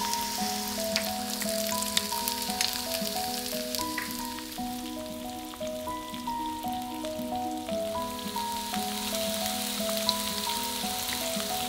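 Diced onion, carrot and red bell pepper sizzling in hot oil in a wok, with scattered crackles. A light background melody of stepping notes plays throughout.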